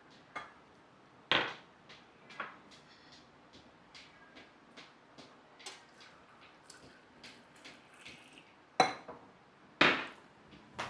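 Kitchen dishes and pots clattering as they are handled and set down: scattered light clinks, with louder knocks about a second and a half in and twice near the end.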